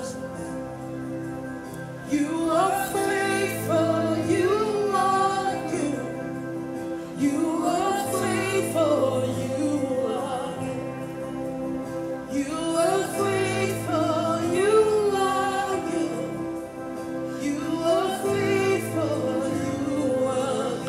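Slow gospel worship music: a voice sings long melodic phrases, one about every five seconds, over steady held chords and a low bass note.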